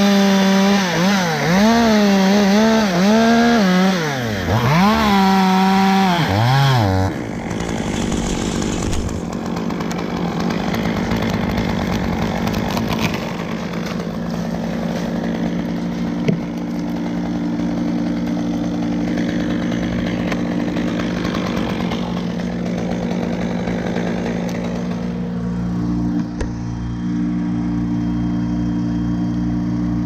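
Stihl top-handle two-stroke chainsaw cutting through the top of a sycamore trunk, its pitch rising and falling under load for about seven seconds, then cutting off. A steady engine hum follows, with one sharp knock partway through.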